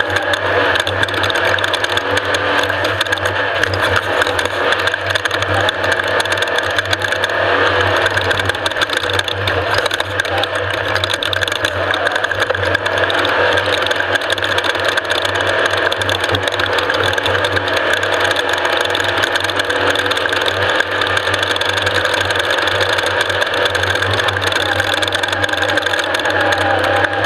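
Off-road race vehicle running at speed: steady, unbroken engine noise with constant rattling.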